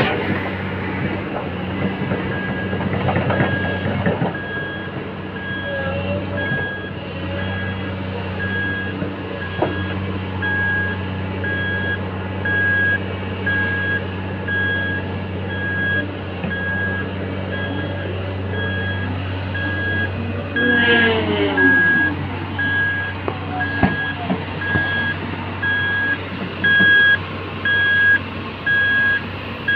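Tipper truck's reversing alarm beeping in an even, repeating pattern over the steady hum of its diesel engine as it backs up. A short sliding squeal is heard about two-thirds of the way through.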